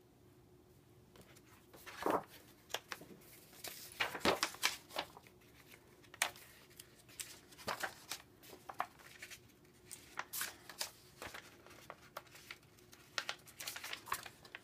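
Pages of a softcover coloring book being turned by hand: irregular paper rustles and flaps, starting about two seconds in.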